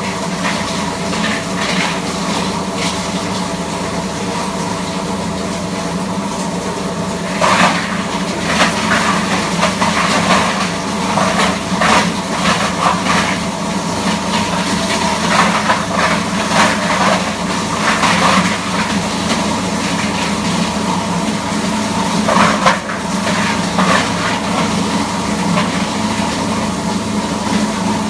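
Enma GS-series sound-proof plastic granulator running: a steady hum with several constant tones. From about seven seconds in, irregular cracks and crackles come over it.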